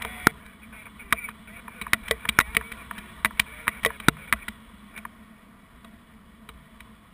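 Wind rushing over a GoPro in paraglider flight, with many sharp, irregular clicks and knocks, dense for the first four seconds or so and then thinning out.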